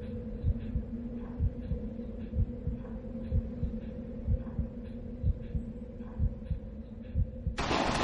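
Drama soundtrack tension cue: slow, heartbeat-like low thumps about once a second, in pairs, over a steady low drone. Near the end a sudden loud rush of noise cuts in.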